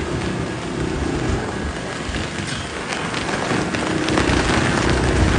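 Storm squall: gusting wind and rain battering, with wind buffeting the microphone. A low rumble grows near the end.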